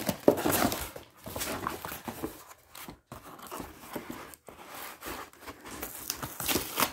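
Packaging rustling and crinkling as items are lifted out of a new pressure cooker's box, with a few light knocks.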